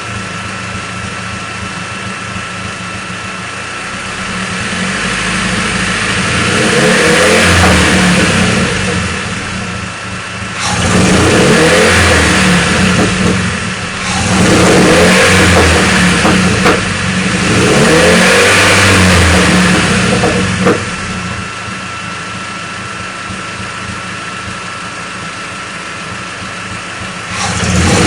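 Engine idling, then revved about four times in a row, the revs rising and falling back each time, and revved again near the end. Its owner reports that it misfires at low rpm.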